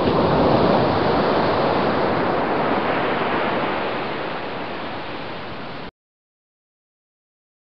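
Ocean surf washing onto a sandy beach: a steady rushing wash of waves that slowly fades and cuts off abruptly about six seconds in.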